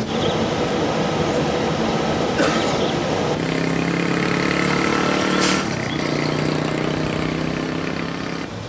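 Armoured military vehicles' engines running as they drive past, a steady engine drone over old-footage tape hiss, with two short clicks about two and a half and five and a half seconds in.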